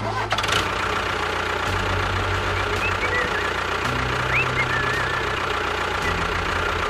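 A small engine or motor running steadily.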